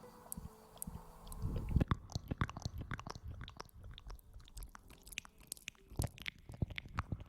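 Close-miked crackling and clicking, many quick small clicks in a dense irregular stream starting about two seconds in.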